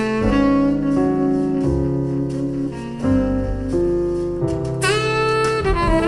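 Jazz with saxophone over piano and bass, played back through a pair of Vandersteen Model 1Ci floor-standing speakers and picked up by room microphones. The horn bends sharply upward about five seconds in.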